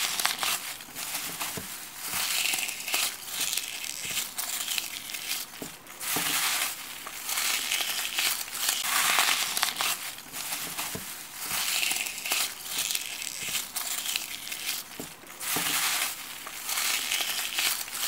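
Hands squeezing and crushing a crumbly white slime mass, giving dense crunching and crackling in repeated squeezes. The sound cuts off abruptly at the end.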